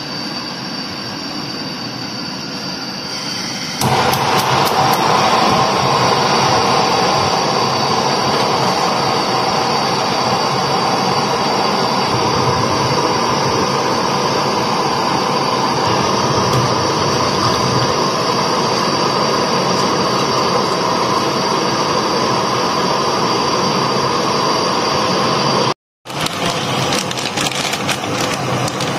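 Gas hob burners running with a steady hiss. About four seconds in, a burner's igniter clicks a few times and a second flame catches, making the hiss louder. Near the end, a plastic bag of dried fusilli crinkles as it is handled.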